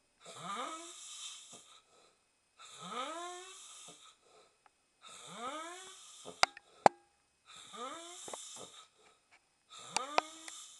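A man snoring in his sleep: about four snores, one every two and a half seconds, each a breath of about a second and a half that rises in pitch, with a breathy hiss above it. A few sharp clicks fall between snores, the loudest about two-thirds of the way through.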